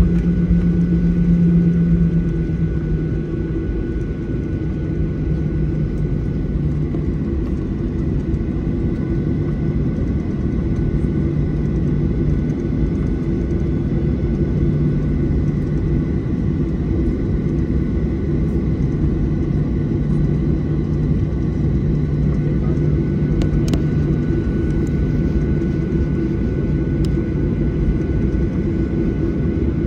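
Airliner engine and cabin noise heard from inside the passenger cabin: a steady, continuous low rumble with a hum and faint steady high tones.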